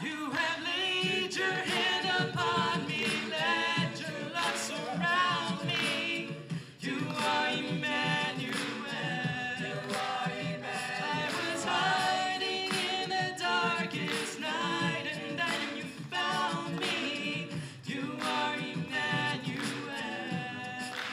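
A cappella vocal group singing in harmony, several voices layered with no instruments, with a brief break in the singing about seven seconds in.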